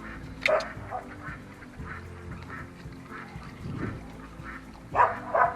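Ducks quacking: one loud call about half a second in and two or three near the end, over steady background music.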